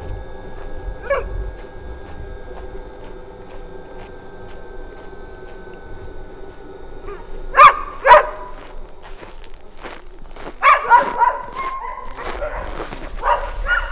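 Dogs barking: two sharp barks about halfway through, then a quick run of barks and yips near the end.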